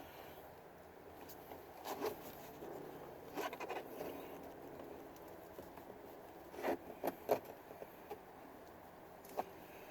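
Faint, scattered clicks and scrapes of hands working loose plastic interior door trim, a few sharper snaps a little over halfway through.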